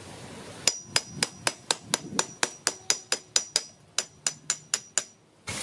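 Hammer striking a hand impact driver to break loose tight end-cap screws on a starter motor: a run of about eighteen sharp metallic blows, some four a second, each with a short ring, stopping shortly before the end.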